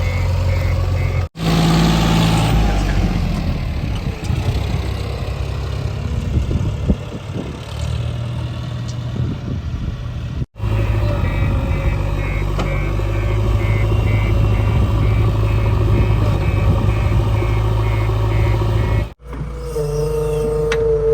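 Diesel engine of a JCB 3DX backhoe loader running steadily while it works, with a low, steady hum. The sound drops out for an instant twice.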